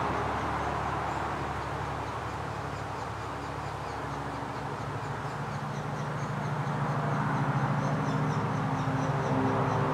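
Honey bees of an open Saskatraz hive buzzing, a steady hum that grows louder in the second half; the keeper reads the colony as calm and friendly, not frenzied.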